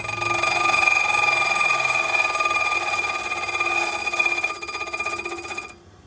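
Brass key being ground against the wheel of an 8-inch bench grinder, taking the key's bottom shoulder down: a steady, high-pitched metallic ringing over a hiss that stops shortly before the end.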